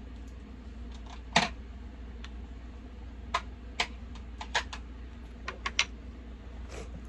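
Light clicks and taps of makeup items, a powder brush and plastic containers, being handled and set down: one sharper knock about a second and a half in, then a run of quicker clicks between about three and six seconds, with a last tap near the end.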